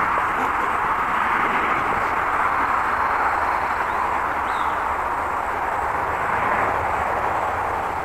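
Steady rushing of road traffic from a busy highway, easing off slightly near the end.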